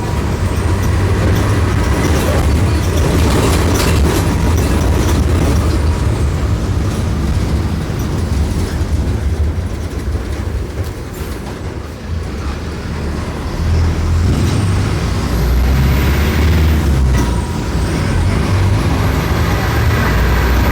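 Mercedes-Benz OM-904LA four-cylinder turbo-diesel engine of an OF-1418 bus running under way. It eases off about ten seconds in and picks up again around fourteen seconds in.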